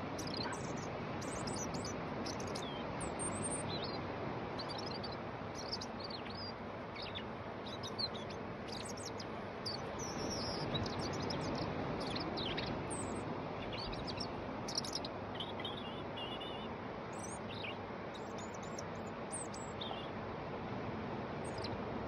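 European robin singing: a long run of short, high, thin warbling phrases and trills with brief pauses between them, over a steady background rush.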